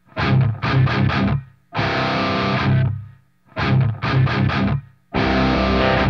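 Rock music with distorted electric guitar: long held chords alternating with runs of short, choppy chords, separated by brief gaps.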